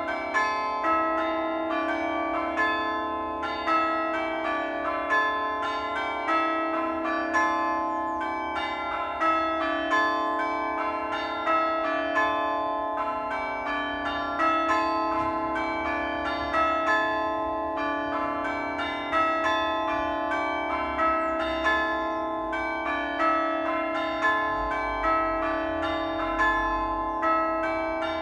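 Church bells ringing in a continuous rapid sequence of overlapping strikes, the tones ringing on into each other, with the loudness swelling regularly about every second and a bit.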